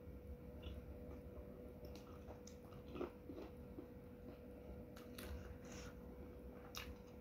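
Close-miked mouth sounds of someone chewing a mouthful of soup: a few scattered soft wet clicks and smacks over a faint steady hum.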